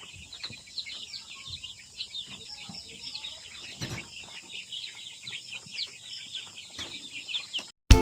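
A flock of free-range chickens clucking and chirping, many short high calls overlapping without a break. Music cuts in right at the end.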